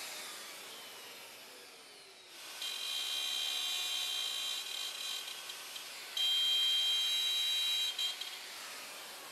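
Plunge router cutting short slots into a cherry tabletop tenon, turning the outer peg holes into slots: the motor winds down at first, then runs twice with a steady high whine, each run a few seconds long, the second louder and winding down near the end.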